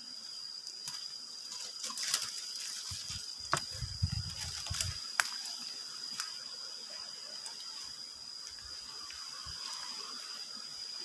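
Dry leaves and twigs crackling underfoot as someone walks through forest leaf litter. The crackles are loudest between about two and five seconds in, with some low handling rumble, over a steady high-pitched insect drone.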